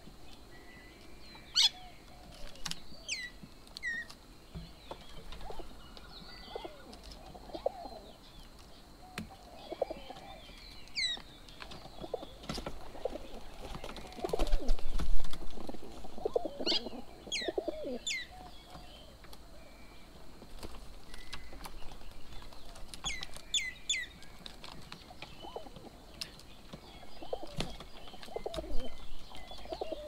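Feral pigeons cooing in low, wavering calls, with a loud flurry of wingbeats about halfway through. Other birds add sharp, falling whistled calls now and then.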